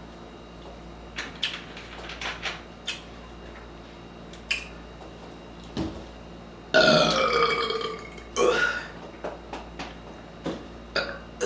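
A woman burping after drinking sparkling water: a burp of about a second, falling in pitch, about seven seconds in, then a shorter one. A few small clicks come before it.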